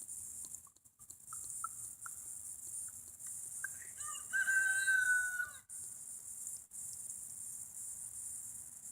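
A single drawn-out animal call lasting about two seconds, starting a little under four seconds in, over a steady faint high hiss.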